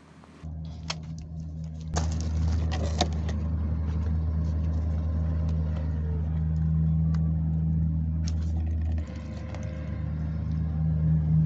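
A steady low mechanical hum, like an engine or motor running nearby, with a few sharp clicks and taps of hands working plastic clips on the coolant pipes.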